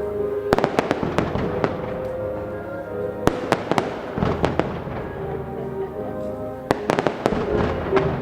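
Fireworks going off in clusters of sharp bangs and crackles, about four volleys, over orchestral music playing steadily underneath.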